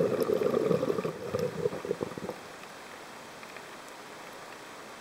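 Scuba regulator exhaust: a diver's exhaled breath bubbling out in a crackling burst for about two seconds, then the low hiss of underwater background.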